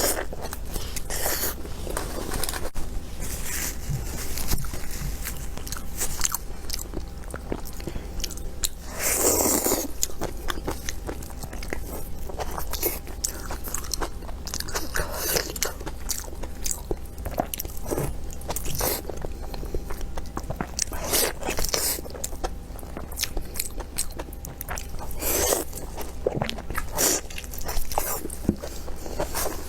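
Close-miked eating: steady wet chewing and biting with many short smacking clicks, and a few louder, longer mouth sounds scattered through, the biggest about nine seconds in.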